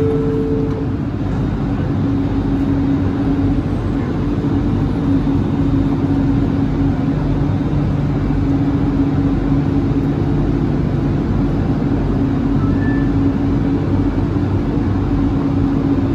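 Bombardier Innovia ART 200 light-rail train standing at an underground station, its onboard equipment giving a steady hum: two low, constant drone tones over a rumble.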